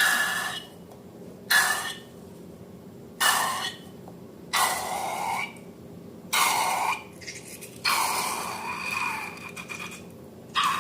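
A series of short rubbing scrapes, about seven of them roughly a second and a half apart, some carrying a faint squeak; the last one near the end is the longest.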